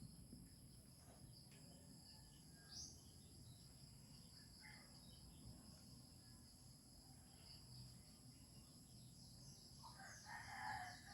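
Near silence: a faint steady background with high-pitched steady tones, then a brief, louder call near the end.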